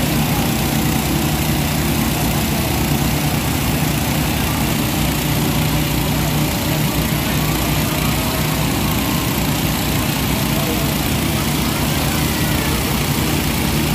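Fire pump engine running steadily at an even speed, with no change in pace.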